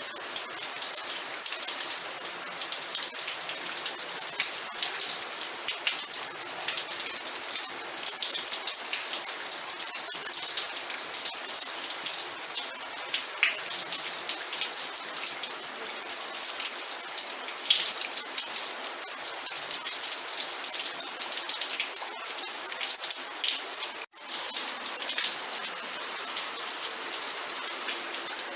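Steady rain, a dense hiss full of many separate drop ticks. The sound drops out completely for an instant about four seconds before the end, then resumes as before.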